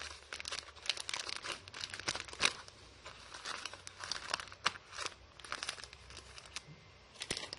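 Plastic packaging crinkling as it is handled, in a quick, uneven run of crackles that stops briefly around two and a half seconds in and again just before the end.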